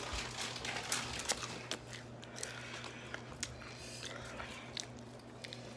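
Someone chewing crunchy hot chips: scattered sharp crunches at a fairly low level, over a faint steady hum.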